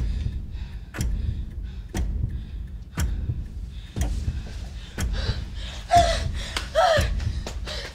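A heavy ticking thump repeating steadily about once a second. Near the end, a girl gives two short, sharp gasping cries about a second apart as she is grabbed from behind.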